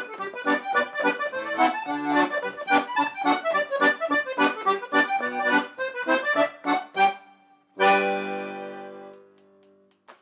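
Piano accordion playing a lively tune in quick, separate notes. Near the end it closes on one held chord that fades away.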